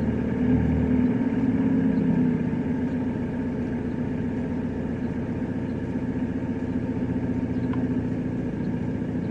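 Steady engine-like running hum, a little louder over the first two seconds or so and then even.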